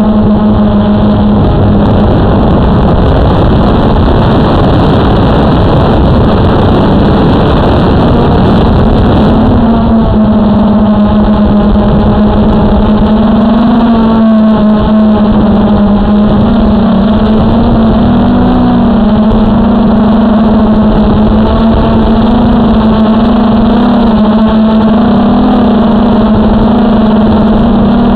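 Quadcopter's electric motors and propellers buzzing, picked up close by its onboard camera: a loud, steady hum whose pitch wavers slightly up and down as it flies.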